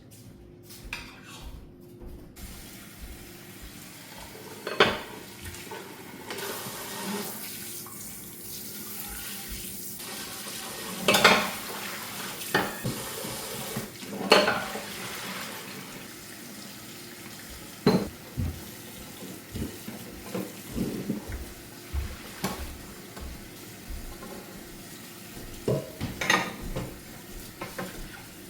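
Water running from a kitchen tap for several seconds, with dishes, pots and utensils knocking and clanking at intervals.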